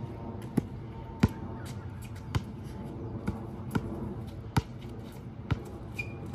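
A basketball being dribbled on a hard outdoor court: about eight sharp bounces at an uneven pace.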